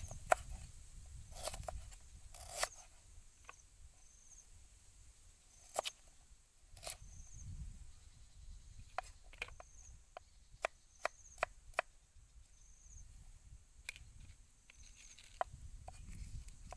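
A knife cutting through vegetables onto a wooden chopping block: scattered sharp knocks, then a quicker run of about a dozen cuts in the middle. A low rumble runs underneath.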